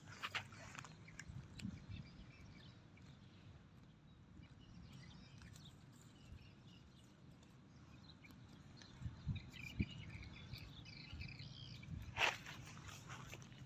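Brahman cattle grazing at close range, with soft low knocks and a short rough, breathy burst at the start and again near the end.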